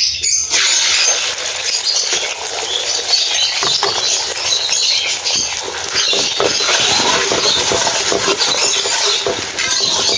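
Beaten egg sizzling in hot oil in a steel wok: a dense, steady hiss that builds about half a second in as the egg hits the pan, with a metal ladle-spatula scraping across the wok.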